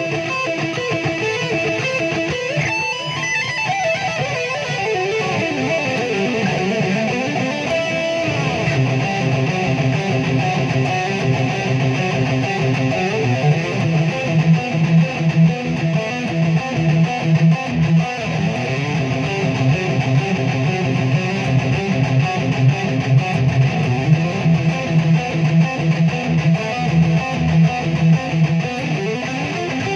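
Electric guitar played lead: fast picked note runs, with sweeping pitch glides about five to eight seconds in.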